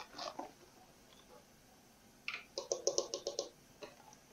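Plastic bag of brown sugar crinkling as it is handled and shaken out, with a quick run of about seven short rustles a little past two seconds in.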